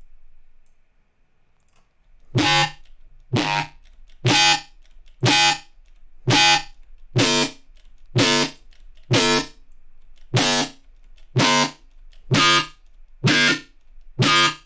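A short, bright, distorted synth bass stab from the Serum software synthesizer, repeated in a loop about once a second. It starts about two seconds in.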